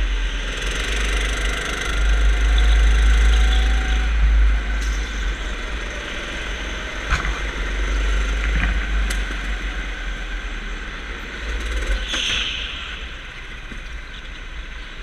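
A go-kart being driven around an indoor track, heard from onboard: its engine running under a steady heavy low rumble. There is a sharp click about seven seconds in, and the sound eases off somewhat near the end.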